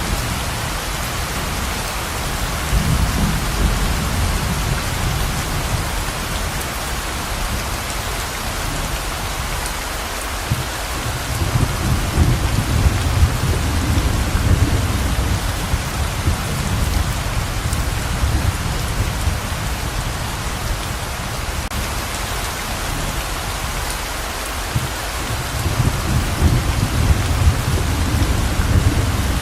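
Heavy, steady pouring rain, with low rumbles of thunder rolling in three times: at the start, about ten seconds in, and again near the end.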